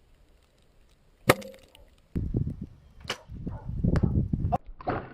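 A bow being shot: the string is released with one sharp, loud crack about a second in that rings briefly. After it comes loud low rumbling, broken by several sharp clicks.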